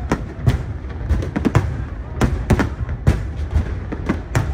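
Aerial fireworks display: shell bursts bang about three times a second at uneven intervals, over a continuous low rumble from the barrage.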